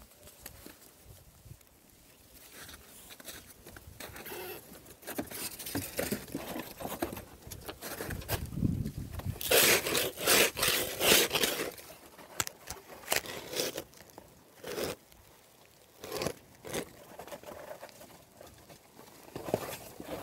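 Footsteps crunching and scraping through fresh snow, uneven, with a louder run of crunching about halfway through.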